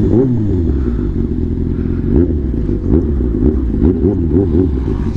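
Motorcycle engine running under way, its pitch rising and falling as the throttle changes.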